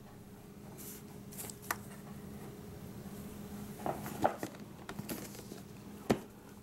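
Cardboard router box being handled: scattered light taps and scrapes, the sharpest about four seconds in and again near six seconds, over a faint steady hum.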